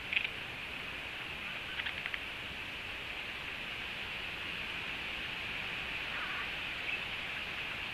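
A few faint, short bird calls over a steady outdoor hiss: a brief call right at the start, a quick run of notes about two seconds in, and a faint falling note around six seconds.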